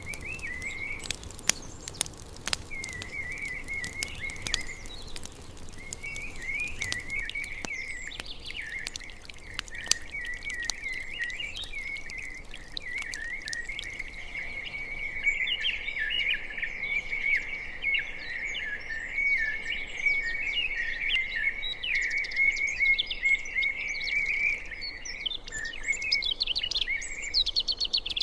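Birds chirping and singing in a steady chorus, with higher, quicker calls joining in the second half. A few sharp clicks in the first few seconds.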